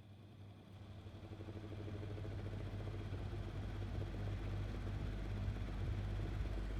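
1982 Micromark 12-inch desk fan switched on at low speed, its motor humming as it spins up over the first couple of seconds and then running steadily, with scratching noises from worn, bad motor bearings.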